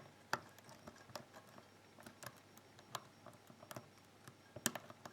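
Faint, irregular clicks and ticks of a lock pick working the pins of an Asec 5-pin euro cylinder under a tension wrench, roughly one click a second, while the lock is not yet open.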